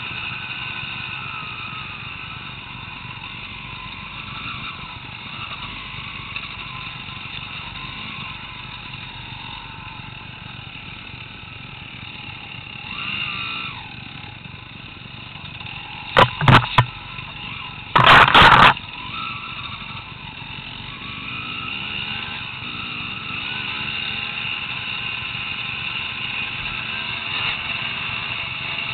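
Enduro dirt bike engines running on an off-road trail, the revs rising and falling. About halfway through come a few very loud sudden knocks, three short and one longer.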